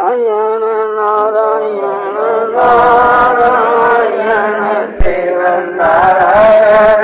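Devotional chanting of a mantra by a male voice. It begins with one long held note; about two and a half seconds in it turns into fuller, wavering chanting with a hissing layer added. There is a sharp knock about five seconds in.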